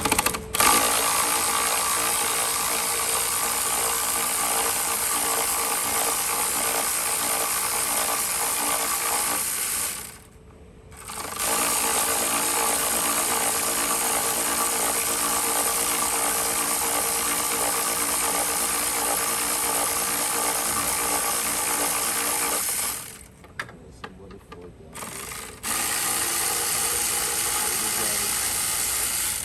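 Cordless power tool running steadily in three long runs, pausing briefly about ten seconds in and again a little after twenty seconds, as it works to back out a long screw at the coolant reservoir.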